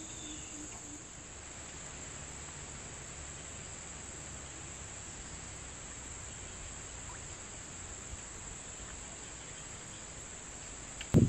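Steady chorus of insects around a tropical pond, a continuous high shrill drone without pauses.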